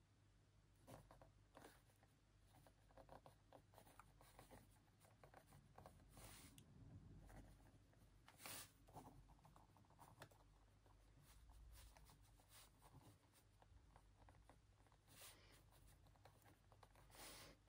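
Faint scratching of a pen writing on a notebook page, in quick irregular strokes.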